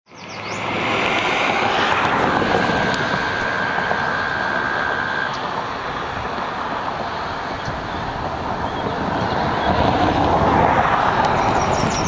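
Steady outdoor background rumble and hiss. A steady high tone runs for about three seconds early on, and a few quick high chirps come right at the start and again near the end.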